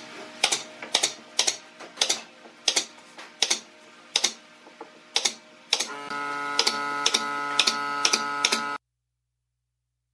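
Pneumatic nail gun firing nails into wood in quick succession, a sharp click about twice a second. A steady hum joins about six seconds in, and everything cuts off suddenly near the end.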